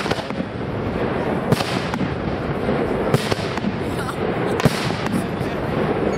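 Aerial firework shells bursting: sharp bangs about every one and a half seconds, over a steady background of noise.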